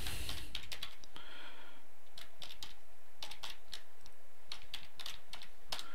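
Typing on a computer keyboard: short, irregular runs of key clicks.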